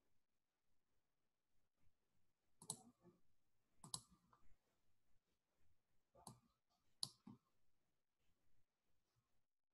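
Four faint computer mouse clicks, in two pairs a few seconds apart, over near silence.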